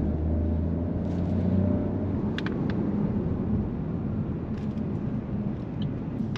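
Opel Mokka driving in sport mode, heard inside the cabin: a steady low engine drone with road and tyre rumble. The engine note is filled out by the car's artificial sport-mode engine sound, which is like an engine roaring.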